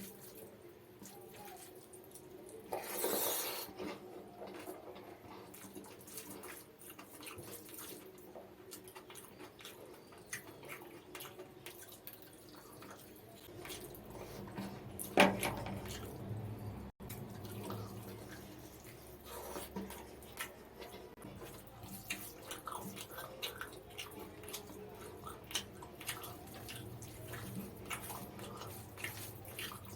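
Close-miked wet eating sounds of mutton biryani being eaten: a steady run of small smacks and clicks, with a louder burst about three seconds in and a sharp, loud one about fifteen seconds in.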